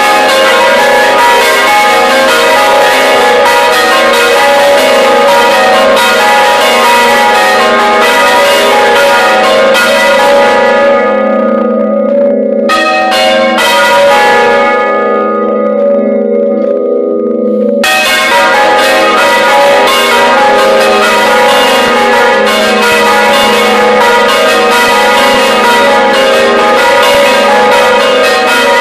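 Several large church bells rung by hand at close range in the belfry: loud, dense strikes overlapping in a continuous peal. The strikes let up twice, leaving the bells' tones humming, the second time for a few seconds, then start again.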